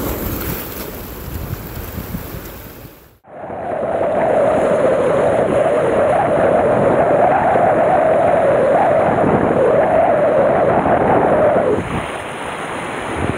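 Surf washing over and against sea rocks, with wind buffeting the microphone. The sound cuts out briefly about three seconds in, then comes back as a louder, steady rush that eases near the end.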